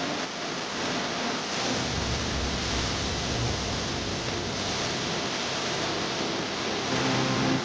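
Steady rushing noise, even from low to high, with a low rumble added from about two to four and a half seconds in.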